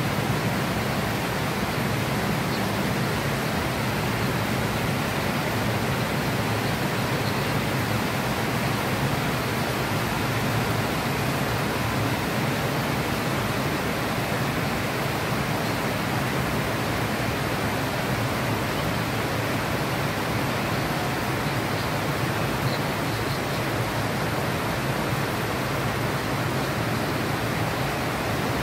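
Heavy rain pouring steadily on trees and roofs, an even hiss with no breaks.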